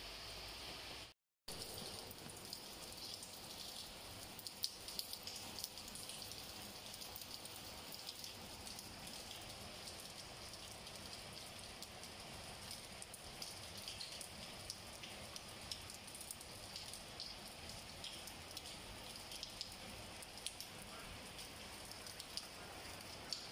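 Rain falling steadily on a wet stone-tiled walkway: an even hiss dotted with many small drop ticks. The sound cuts out briefly about a second in.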